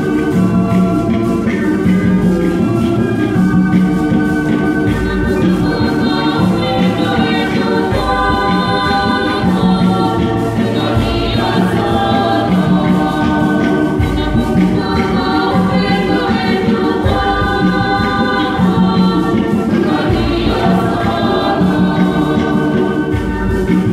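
Church choir singing a hymn in several voice parts, in sustained phrases, with a low beat recurring underneath.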